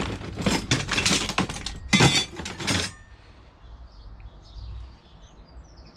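Small pieces of scrap metal clinking and clattering as they are rummaged through in a container: a dense run of sharp knocks over the first three seconds, the loudest about two seconds in.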